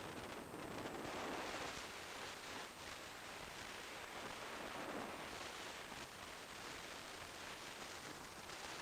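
Steady wind rush over the microphone of an action camera on a motorcycle riding at expressway speed, swelling and easing slightly, with the bike's road noise blended in.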